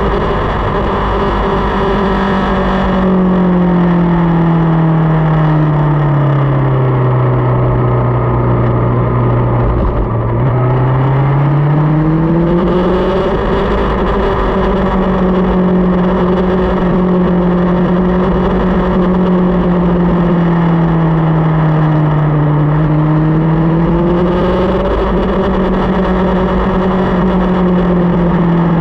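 Motorcycle engine running under way, with steady wind and road noise. The engine note drops as the bike slows a few seconds in, holds low for a few seconds, then climbs as it speeds up again. It dips and rises once more, more gently, near the end.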